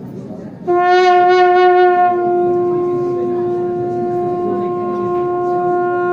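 Conch shell (shankha) blown in one long, steady note that starts about a second in, louder at first and swelling again near the end. In a temple, this blowing announces the opening of the altar doors for darshan.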